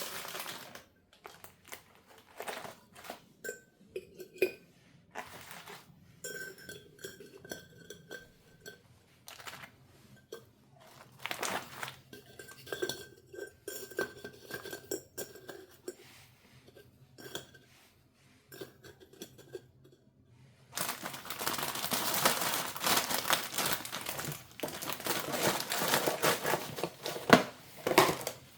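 Dishes and cutlery being handled: scattered clinks and knocks of plates and utensils, some with a brief ring. In the last several seconds there is a louder, continuous stretch of noisy clatter.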